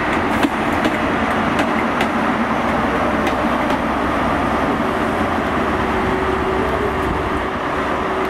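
An InterCity 125 High Speed Train with its rear Class 43 diesel power car passing: a steady train noise with the power car's engine running, and sharp clicks of wheels over rail joints every half second to a second.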